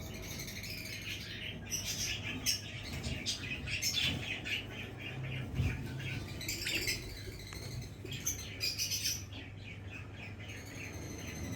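Pet budgerigars chirping and warbling continuously in rapid, busy chatter, easing briefly a little after nine seconds in.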